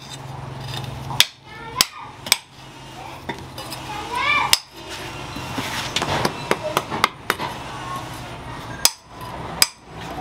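Hand hammer striking stone in sharp, uneven blows, chipping pieces off a rock to rough out a sharpening stone, with lighter knocks and clicks between.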